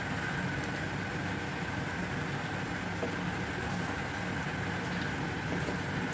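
Steady mechanical hum with a faint high whine, as of a kitchen fan or gas burner, while thick rice porridge simmers and is stirred with a wooden spatula.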